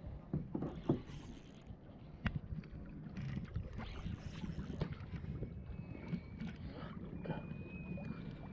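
A kayak on the water: a steady low wash of water against the hull, with scattered knocks and clicks of paddle and gear against it, a cluster of them in the first second. A faint thin whistle runs through the second half.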